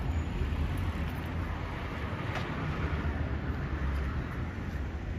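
Street ambience: a steady low rumble of traffic with wind on the microphone.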